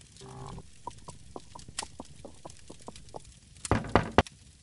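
A brief low tone, then a run of about ten small squeaky clicks at roughly four a second, then three loud knocks in quick succession near the end.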